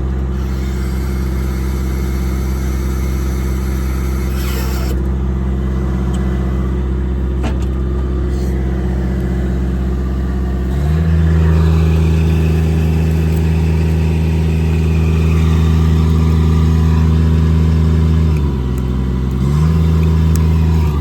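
Diesel engine running at a steady speed, stepping up to a higher speed about 11 s in. It drops briefly back to the lower speed near the end, then rises again.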